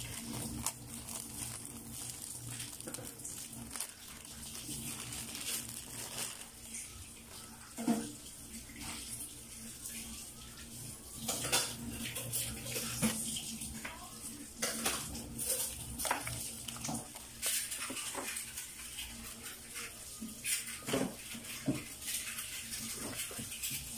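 Clear plastic bag crinkling and rustling as multimeter test leads are unwrapped, followed by the leads and probes being handled, with scattered light clicks and taps.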